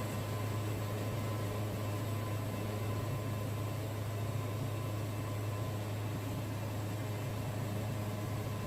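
Wood-Mizer band sawmill running with a steady, unchanging low hum.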